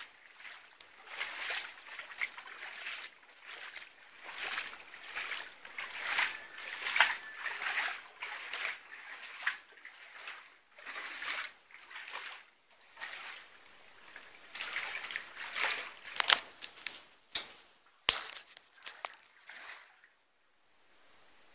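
Footsteps wading through shallow floodwater, splashing and sloshing with each stride, with a few sharp knocks toward the end before the splashing stops.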